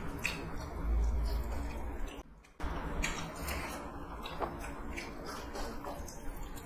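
Eating sounds: chewing and fingers mixing rice with chicken curry, with many small wet clicks. The sound cuts out briefly about two and a half seconds in.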